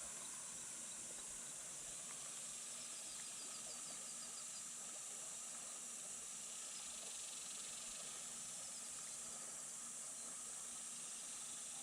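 Quiet riverside ambience: a steady high-pitched insect drone, with a few faint short chirps about three seconds and nine seconds in.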